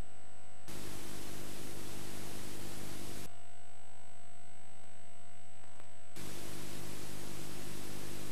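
VHS tape playback hiss with a steady mains hum under it, over a silent warning screen. The hiss swells louder about a second in, drops back to mostly hum about three seconds in, and swells again about six seconds in.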